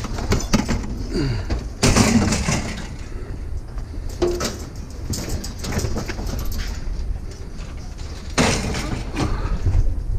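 Clattering and knocking of metal scrap being pulled apart and handled, with two louder bursts of clatter about two seconds in and again near the end.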